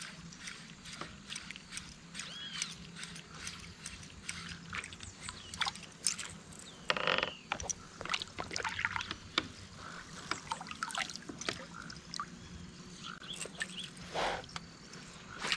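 Birds chirping and calling in the trees along the riverbank, many short chirps with a louder call about halfway through and another near the end, over small water sounds around the kayak.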